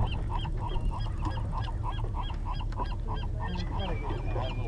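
Seabirds calling around the boat: a rapid, evenly repeated series of short, high, hooked cries, about three a second, over a steady low rumble.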